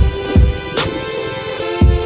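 Electronic background music with a steady beat: deep kick drums, sharp snare or hi-hat hits and sustained synth tones.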